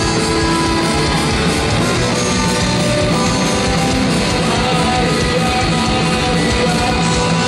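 Live rock band playing loudly, electric guitar to the fore.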